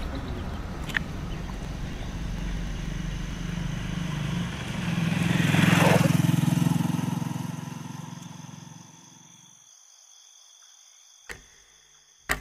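A motor vehicle's engine approaching and passing close by, loudest about six seconds in with a rush of air, then fading away into near silence. Two short sharp clicks near the end.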